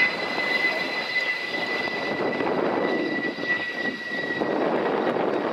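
Mitsubishi F-2B fighter's single F110 turbofan engine running as the jet moves along the runway. A steady high whine sits over a broad rush of jet noise, and the whine slides slightly lower in pitch over the few seconds.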